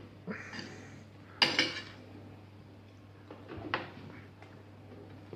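A spoon clinking and scraping against a dinner dish as a child scoops up food. A few sharp clinks, the loudest about one and a half seconds in, with another pair near four seconds.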